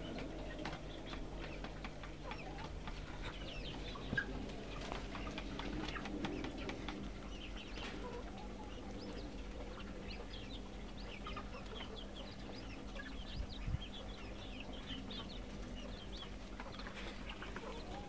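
Chickens clucking in a coop, with many small birds chirping in short high calls throughout. A couple of short knocks.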